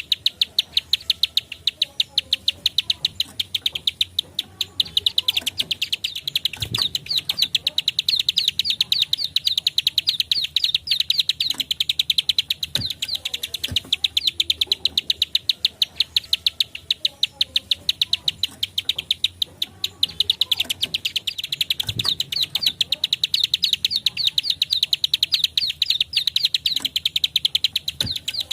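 Plain prinia (prenjak sawah / ciblek sawah) calling a rapid, unbroken string of sharp, high clicking 'klik' notes, many a second. The notes ease off briefly a couple of times, then pick up again.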